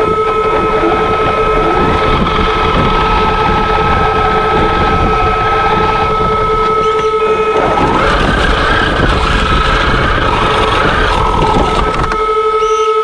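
Traxxas X-Maxx's brushless electric motor and drivetrain whining, heard from on board as the RC truck drives back and forth through snow with its plow blade, over a steady high tone. The whine climbs in pitch about eight seconds in as the truck speeds up and drops back a few seconds later.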